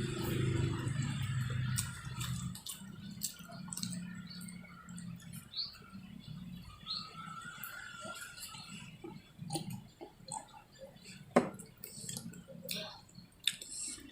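Wet chewing and lip-smacking of someone eating grilled fish by hand: a scatter of small moist clicks, with a sharper click near the end. A low hum sits under the first couple of seconds.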